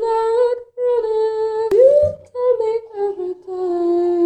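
A person humming a slow wordless tune in held notes, with a sharp click and a quick upward swoop a little under two seconds in, settling onto a long lower note near the end.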